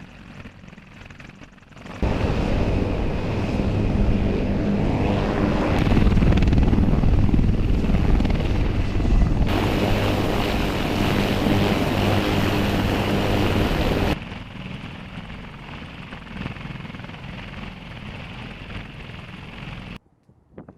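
Military helicopter running, its rotor and turbine making a steady hum with noise over it. It turns loud about two seconds in, drops to a lower level about two-thirds of the way through, and cuts off abruptly near the end.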